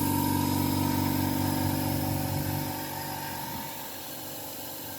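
Oil extraction pump running with a steady mechanical hum as it draws old engine oil out; the hum fades and thins about three and a half seconds in.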